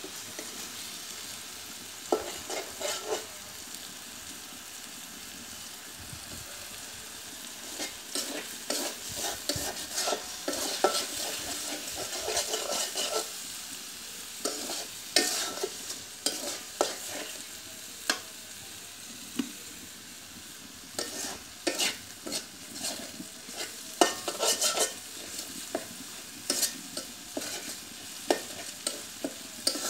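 A spatula scraping and stirring egg and tomato in a metal wok, the food frying with a steady sizzle. The scrapes come in irregular clusters and grow busier after the first several seconds.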